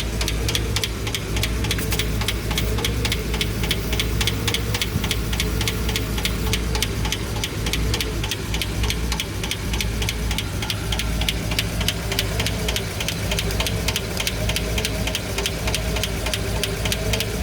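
Pushrod V engine idling with its valve cover off, the exposed valve train clattering with a fast, even ticking. The noise is typical of a failing hydraulic lifter, which the owner suspects is no longer running well on the camshaft.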